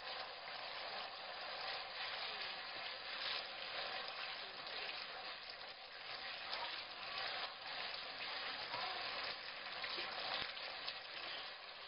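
Red sauce sizzling steadily in a nonstick wok as it cooks down, stirred with a wooden spatula.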